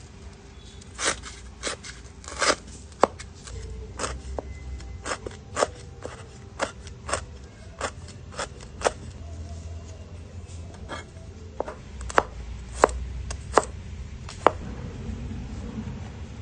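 Knife chopping food on a cutting board: sharp single strikes at an uneven pace, roughly one or two a second, stopping near the end, over a steady low hum.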